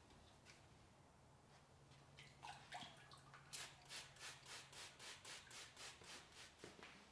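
Faint, quick rubbing strokes by hand on a workpiece, about four a second, starting after a couple of seconds of near silence and fading out near the end.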